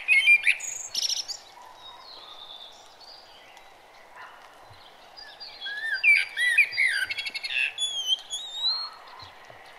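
Birdsong: several birds chirping, whistling and trilling over a soft steady hiss, with a short burst of calls at the start and a longer, busier run of varied whistles and quick trills in the second half.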